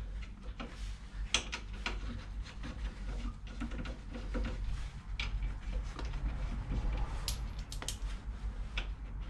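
Irregular metallic clicks and knocks of hand tools on a car's wheel and brake parts.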